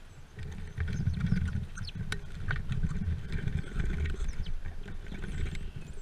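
Small songbirds at a seed feeder right by the microphone: irregular low knocks and scuffles of feet, wings and beaks on the plastic feeder, with many short high chirps.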